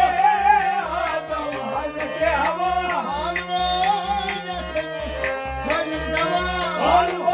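Kashmiri kalaam (sung poem): a solo voice singing an ornamented, bending melody over a steady low drone, with a drum keeping an even beat.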